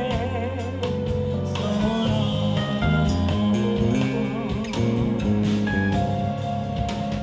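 Live soul band: a woman singing into a microphone, holding wavering notes, over electric bass, drums and keyboard.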